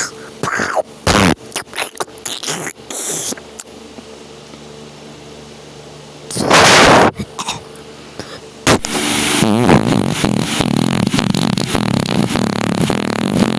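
Homemade sound effects for a fight animation: a run of sharp clicks and short pops, a loud rushing burst about halfway, then a long dense crackling rumble from about two-thirds in.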